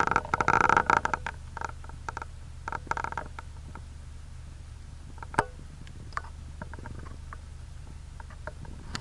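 Steady low hum of an idling vehicle engine under bursts of creaking and clicking, loudest in the first second and again around three seconds in, with scattered ticks after.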